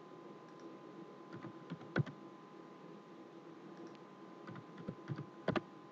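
Faint computer keyboard keystrokes from typing number values, in two short runs of a few taps each, the sharpest about two seconds in, over a faint steady hum.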